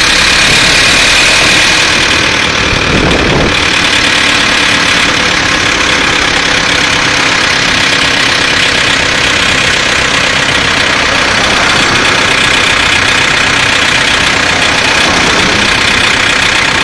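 Old tractor engine running steadily, loud and close, with a brief low rumble about three seconds in.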